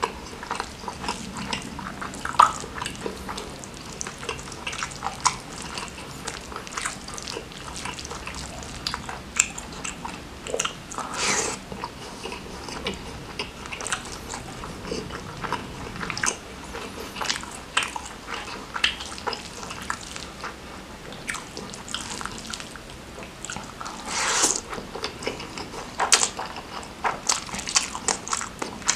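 Close-miked eating by hand: wet chewing and lip smacks with many short, sticky mouth clicks, the food being rice mixed with spicy instant noodles.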